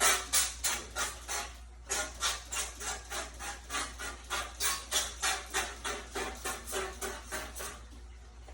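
Rapid back-and-forth scrubbing on a dehumidifier being cleaned: a rhythm of rubbing strokes, about three to four a second, with a short pause near the start. The strokes grow fainter and stop shortly before the end.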